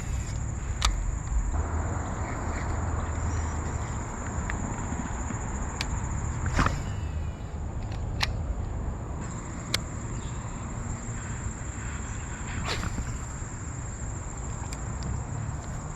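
Steady high-pitched insect chorus that dips briefly near the middle, over a low rumble, with about half a dozen scattered sharp clicks.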